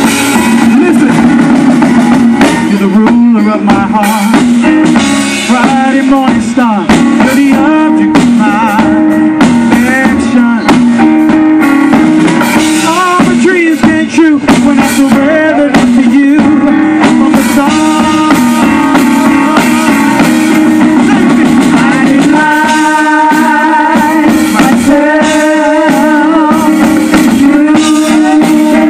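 Live worship band playing loudly, with electronic keyboard, guitar and drums, and singing over it.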